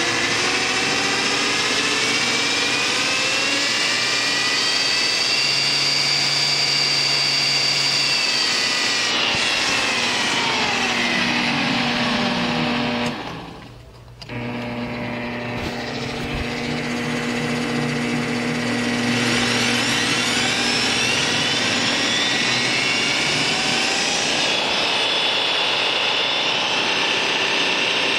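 Milwaukee magnetic drill press motor running unloaded with a steady whine. About halfway through it slows, nearly stops for about a second, then runs back up to speed.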